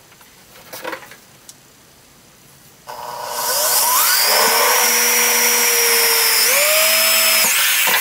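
Power drill boring a hole through the centre of a shield's domed boss. The drill starts about three seconds in, its whine rising as it spins up, then runs steadily with a short jump in pitch before dipping near the end.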